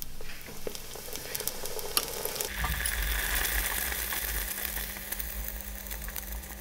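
Yeast donut dough sizzling as it fries in hot oil at 180 °C in a deep fryer basket, a steady bubbling hiss. A low steady hum comes in about two and a half seconds in.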